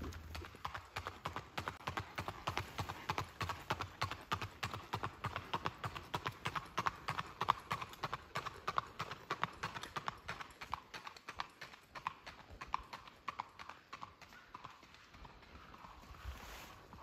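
Hoofbeats of a gaited Missouri Fox Trotter horse under saddle on a paved road: a quick, even clip-clop that fades away near the end.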